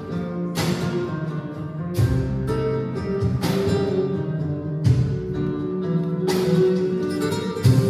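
Live flamenco music with plucked guitar over held notes. Sharp percussive accents fall about every second and a half.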